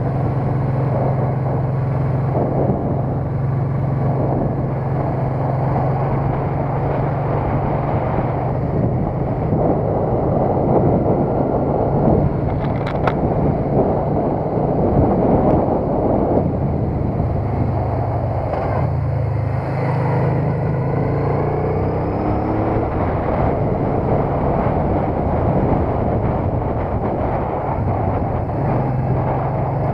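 Motorcycle engine running at road speed under a heavy rush of wind over the microphone. The engine note shifts with speed, and rises briefly about twenty seconds in.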